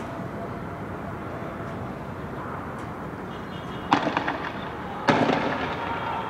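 Two sharp bangs about a second apart, the first about four seconds in, each with an echo dying away between the buildings, over a steady background rumble. They sound like fireworks or tear-gas shots fired in a street clash.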